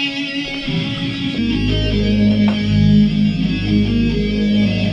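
Electric guitar playing in a band rehearsal, with loud, sustained bass notes coming in under it about a second and a half in.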